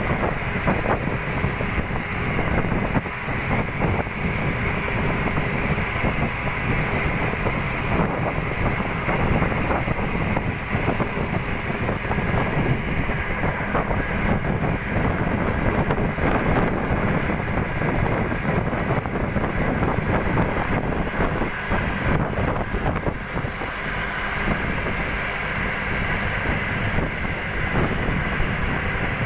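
Steady engine and road noise of a moving bus, heard from inside through an open window, with wind buffeting the microphone.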